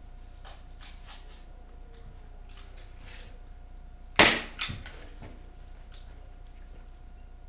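Airsoft gun firing two shots about half a second apart, about four seconds in. The first crack is loud and sharp, the second weaker. Faint scattered pops and clicks of other airsoft fire come before and after.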